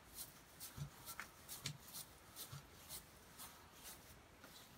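Faint, quick scrubbing strokes of a hand rubbing dirt and grime off the face of an old sign, about two strokes a second.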